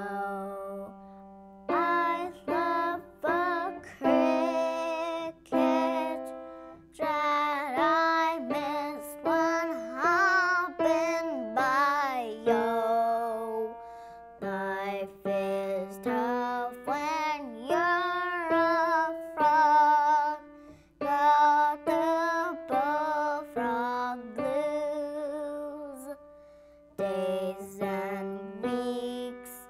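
A song: a singing voice with a plucked-string accompaniment, in short melodic phrases.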